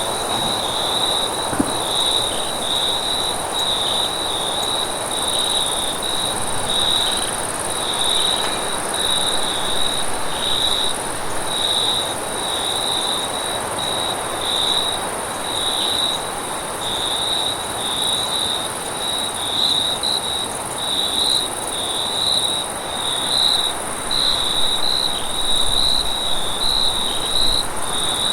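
Night-time forest ambience of crickets chirping: a repeating chirp about once or twice a second, over a steady high insect trill and a soft even hiss.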